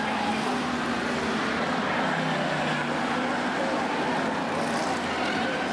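F1 stock car engines running as several cars race around an oval track, a steady mixed engine drone with no single car standing out.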